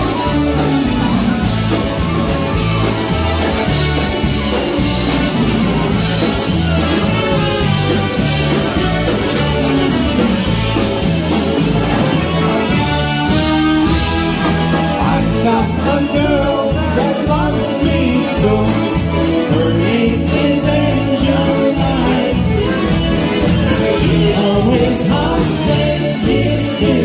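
Live polka band playing a polka: concertinas and accordion carry the tune over electric bass and drum kit, with a steady two-beat bass line.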